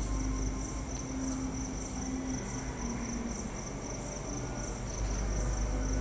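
A cricket chirping steadily, short high-pitched chirps about every two-thirds of a second, over a faint continuous high whine.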